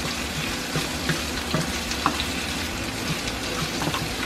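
Sliced red onions sizzling in a frying pan, with short scrapes and taps from a wooden spatula stirring them now and then.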